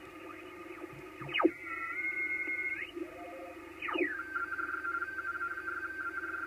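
Amateur-radio transceiver receiving the 28 MHz band in upper sideband while being tuned: steady band hiss, and twice a whistling tone sweeps quickly down in pitch as the dial passes a signal, then settles into steady high data-like tones. The first is a short cluster of tones; the second is a single rapid on-off pulsing tone, too fast for Morse by the uploader's reckoning.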